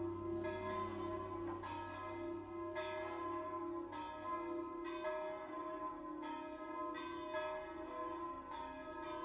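A recording of church bells pealing, a bell struck about once a second, each ringing on over the others. A low held note sounds underneath and stops about halfway through.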